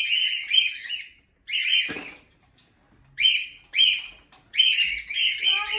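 Cockatiels chirping: four bouts of high, scratchy calls, each about half a second to a second long, with short pauses between them.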